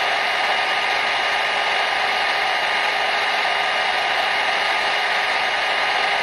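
Hair dryer running steadily: an even rushing noise with a few faint steady tones in it.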